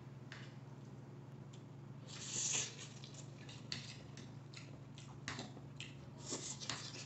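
Quiet eating sounds: a fork and spoon clicking and scraping faintly on a plate, with soft mouth sounds as a forkful of noodles is eaten, and a brief soft hiss about two seconds in.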